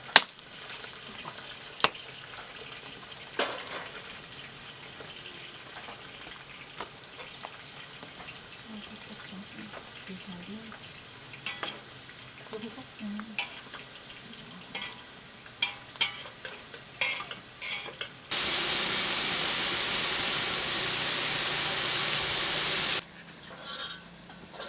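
Potato chips frying in oil, with sharp clicks and scrapes of a utensil against the pan. About 18 seconds in, a much louder, steady sizzle starts suddenly and cuts off about five seconds later.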